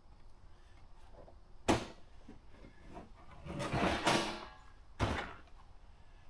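Gear being handled and shifted about in a small fishing boat: a sharp knock, a longer scraping shuffle, then another knock.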